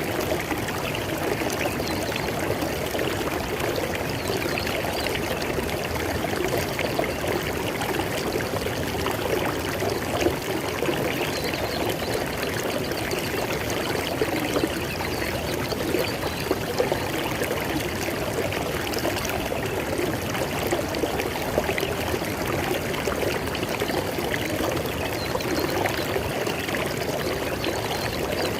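River water flowing steadily over stones, an even rushing and splashing with small gurgles.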